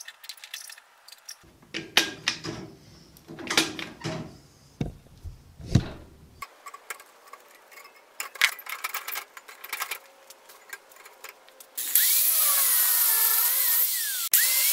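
Clicks, clinks and scrapes of metal parts being handled and fitted. About twelve seconds in, a handheld angle grinder starts and runs loudly, its whine dipping and recovering in pitch. It stops briefly near the end, then starts again.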